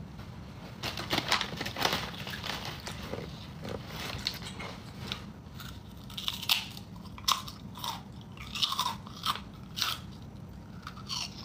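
A person crunching and chewing crab-flavoured chips, with irregular crisp crunches all the way through.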